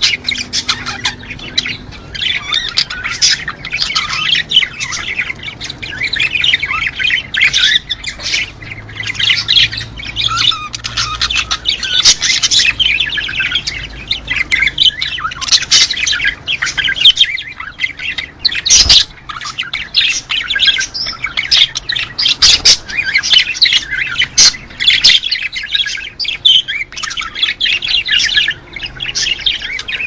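Budgerigars chattering and warbling without a break: a dense stream of rapid chirps, clicks and squawks from several birds at once.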